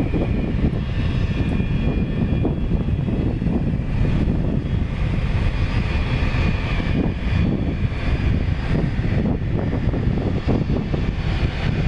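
Boeing 767-300 freighter's twin jet engines at low taxi thrust as it rolls and turns on the runway: a steady low rumble with a faint high whine above it.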